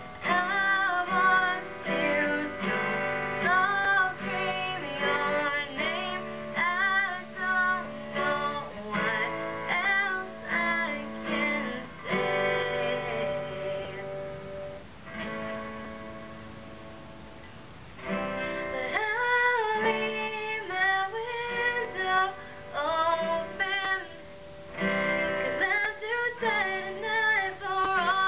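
A woman singing a ballad to her own strummed acoustic guitar. About halfway through the voice stops for a few seconds and the guitar rings on quietly alone, then the singing comes back in.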